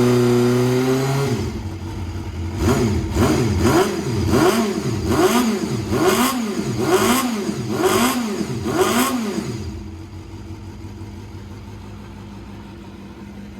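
Honda CBR250RR MC22's inline-four engine through an aftermarket FADDY DADDY silencer. High revs fall away in the first second or so, then about nine quick throttle blips follow, each rising and falling in pitch, before the engine settles to a steady idle about ten seconds in.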